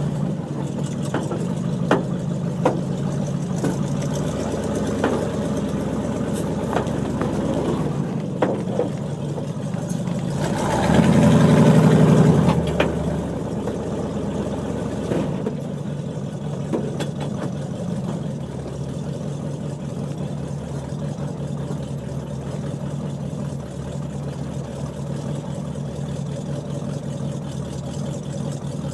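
1975 International Harvester pickup's 392 V8 running as the truck is driven slowly in four-wheel drive. About eleven seconds in the engine speeds up and gets louder for a couple of seconds, then eases back. There are a few sharp knocks in the first half.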